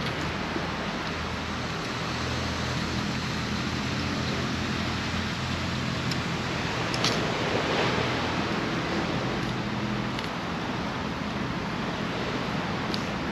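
Sea waves washing onto the beach: a steady rush that swells briefly about seven seconds in, over a low steady hum.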